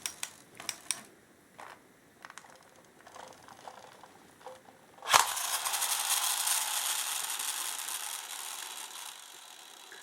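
Plastic clicks from a Bandai Thunderbird 4 toy being handled, then about five seconds in a toy mechanism starts suddenly, whirring with rapid ratchet-like clicking, and slowly runs down and fades.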